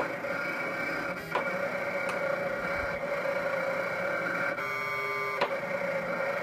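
A US Cutter SC vinyl cutter is cutting at a reduced speed of 400 mm/s, its stepper motors whining steadily as the carriage and rollers move. There are a few sharp clicks, and a little past the middle the whine changes to a different, several-toned pitch for about a second.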